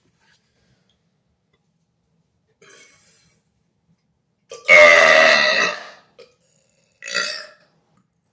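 A man's long, loud burp, about a second and a half long, a little past the middle, followed about a second later by a shorter, fainter sound.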